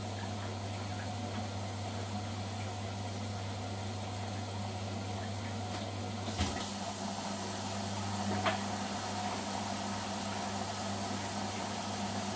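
Bendix front-loading washing machine mid-wash: a steady low mains hum, then a sharp click about six seconds in as the drum starts turning the wet laundry and the hum changes pitch, with a second lighter click a couple of seconds later.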